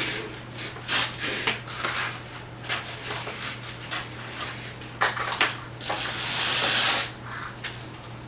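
Handling noises of bicycle assembly: scattered clicks and knocks of parts and tools, with a longer scraping rustle lasting about a second near the end, over a steady low hum.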